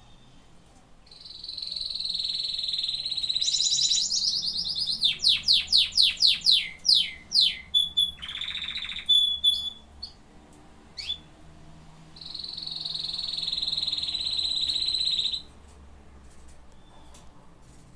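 Domestic canary singing: a long, high rolling trill, then a run of about ten quick falling notes and a few short whistles, and another long trill that stops abruptly near the end.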